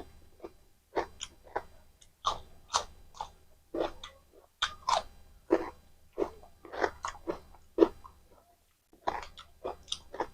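Close-miked eating: irregular crisp bites and chewing crunches, a couple a second with brief pauses.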